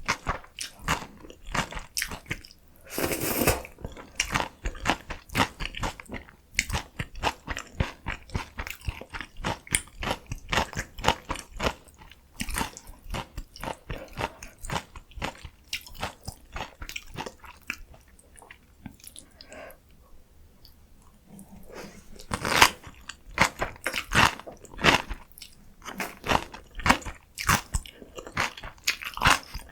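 Close-miked eating: crunchy bites and wet chewing of spicy noodles, young-radish kimchi and kimchi dumplings. The chewing goes quieter for a while past the middle, then loud crunchy bites pick up again in the last third.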